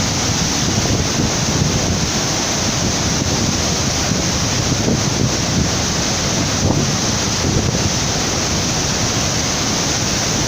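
Floodwater rushing steadily and loudly, with wind buffeting the microphone.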